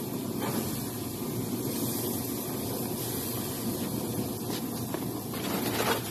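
Chicken pieces sizzling on a barbecue grill: a steady hiss.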